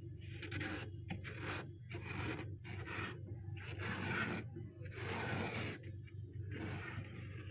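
A bare hand scraping and clawing through thick, powdery freezer frost. It comes as a series of rough scrapes and crunches, about one a second, with short pauses between them.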